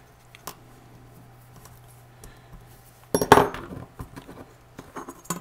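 Handling noise while sculpting putty on a miniature: small clicks and taps of a metal sculpting tool and the model against a hard acrylic work sheet, with one louder scrape a little past halfway, over a low steady hum.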